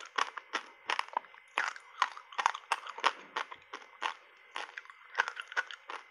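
Chewing of refrozen passionfruit reshape ice coated in matcha powder: sharp, irregular crunches, about three a second.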